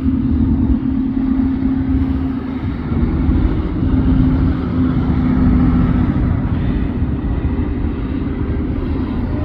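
Motor vehicle running: a steady low rumble with a droning hum that fades out about six seconds in.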